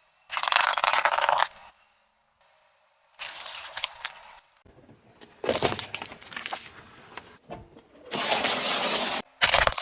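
Objects crunching, cracking and breaking as a car tyre rolls over them, in about five short bursts that start and stop abruptly.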